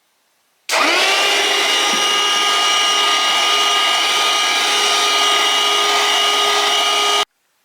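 An electric motor with a rush of air, like a vacuum or blower, starts about a second in, quickly spins up to a loud, steady whine and cuts off abruptly.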